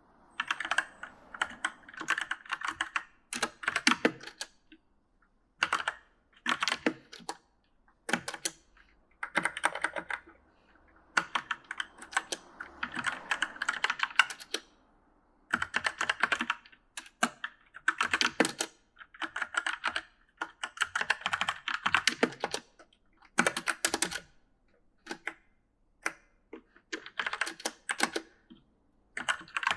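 Typing on an E-Element mechanical gaming keyboard: quick runs of keystrokes in bursts of a second or two, broken by short pauses.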